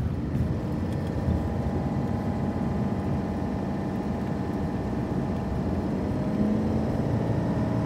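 Cummins diesel dually pickup engine running steadily while towing a loaded flatbed trailer, its note rising slightly toward the end as it gathers speed.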